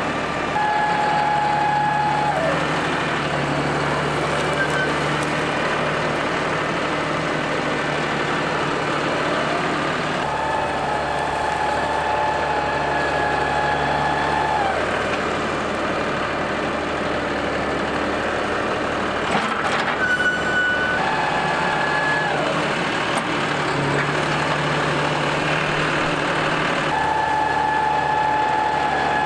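Compact tractor engine running steadily while it drags a box blade over dirt, with a high whine that comes in, holds for a few seconds and falls away, four times.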